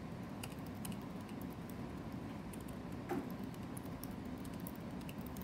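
Dry-erase marker on a whiteboard drawing small circles: a scatter of faint quick ticks and scratches as the tip touches the board, over a low steady room hum.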